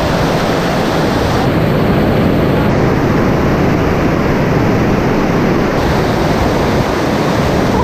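Waterfall rushing: loud, steady noise of falling water.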